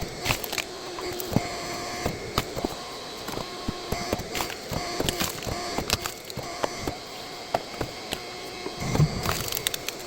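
Hydraulic log splitter running with a steady hum while wood cracks and splinters under the wedge in many sharp snaps and knocks, with a heavier thump about nine seconds in.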